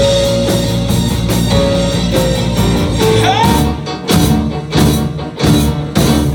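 Live rock band with electric guitars, keyboards, bass and drums playing loud. About three seconds in, a rising pitch slide leads into a break where the bass drops out and the band plays a few sharp hits together, then the full band comes back in near the end.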